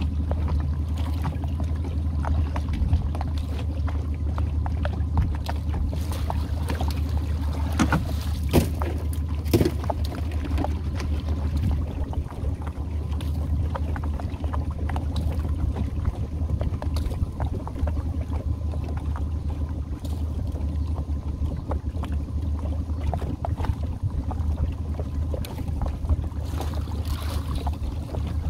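Boat engine idling steadily while the boat runs slowly along a crab trotline, with a few sharp knocks scattered through.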